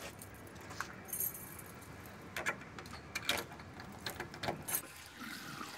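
A bunch of keys jingling and clicking in a shop door's lock as the door is unlocked, in a few short, scattered clicks.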